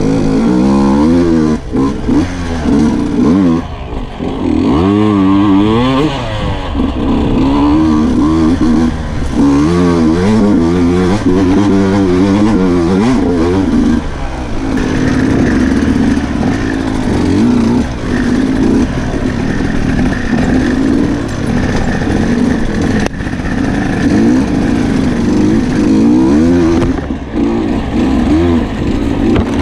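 Sherco 125 enduro dirt bike engine under way, revving up and down again and again as the throttle is worked over rough ground, then holding higher, steadier revs from about halfway through.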